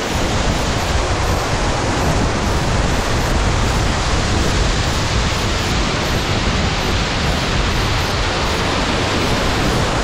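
Waterfall pouring down a rock face into a pool close by: a loud, steady rush of falling water.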